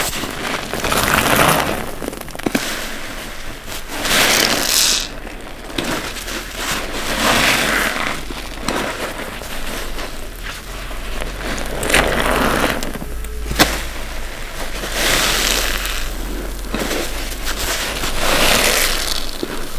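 Wet block sponges squeezed by hand, a crackling squish that swells and fades about every three seconds.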